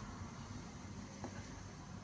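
Quiet room tone with a steady low hum, and one faint click about a second in from a small spring and spacer being fitted by hand.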